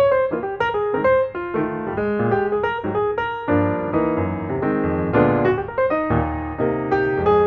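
Background piano music: a light melody of quick notes over chords.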